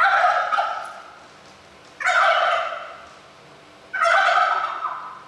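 Turkey toms gobbling: three gobbles about two seconds apart, each starting suddenly and trailing off over about a second.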